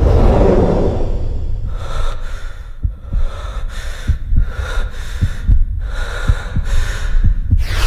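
Film soundtrack: rapid, ragged panting breaths over a run of low thuds, about two or three a second. A loud rush comes just before the end.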